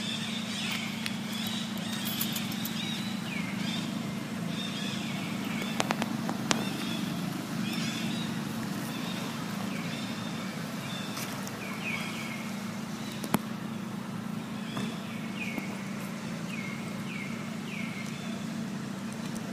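Infant long-tailed macaque giving a long series of short, high squeaky cries, each dropping in pitch, over a steady low hum, with a few sharp clicks.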